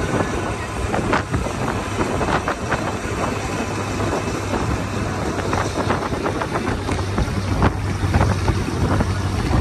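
A vehicle driving over a rough gravel road: a steady low engine hum under constant road noise, with frequent knocks and rattles from the bumps.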